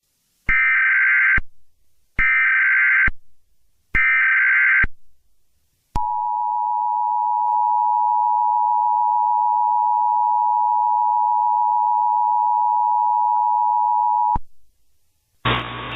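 Emergency Alert System header: three bursts of warbling digital data tones, each about a second long, then the EAS attention signal, a steady tone held for about eight seconds that cuts off suddenly.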